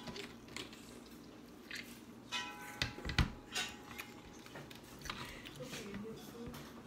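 Scattered wet clicks and small knocks of hands picking through crab legs and corn on a metal sheet pan. A denser cluster of knocks comes about two and a half to three and a half seconds in, with a short ringing clink near its start.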